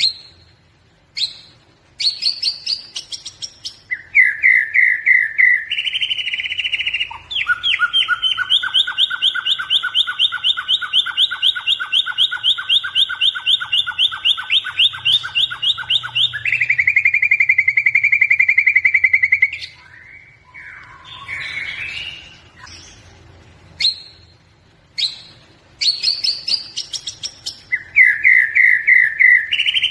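A bird singing long, rapid trills of quickly repeated notes. Each phrase is pitched differently, the longest runs about nine seconds, and short breaks fall between phrases.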